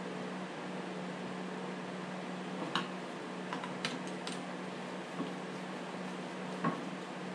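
A few light metal clicks and taps as the guide bar and chain are fitted back onto a Stihl MS 250 chainsaw, over a steady low hum.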